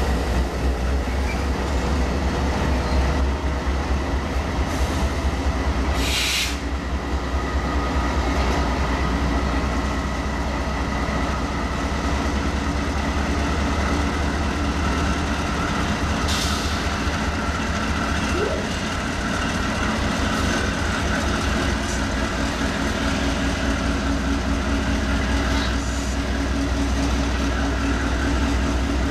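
Several diesel freight locomotives rolling slowly past. Their engines give a steady deep drone under the wheel and rail noise, with a faint high wheel squeal on the curve. Two brief hiss-like bursts come about six and sixteen seconds in.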